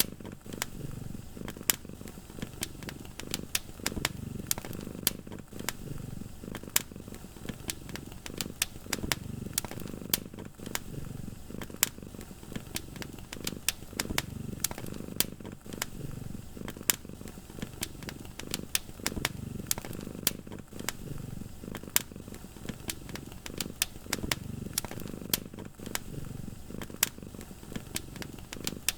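Wood fire in a fireplace crackling with frequent sharp pops, over a cat's low, steady purr that swells and fades with each breath.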